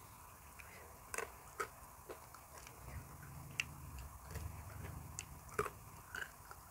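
Close-miked chewing: scattered soft mouth clicks and smacks, roughly one every half second to second, as a mouthful of food is eaten.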